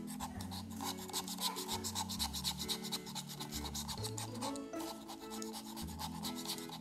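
A razor blade in a holder scraping caked-on dirt off the plastic panel cover of a solar light, in rapid back-and-forth strokes with a brief pause a little under five seconds in.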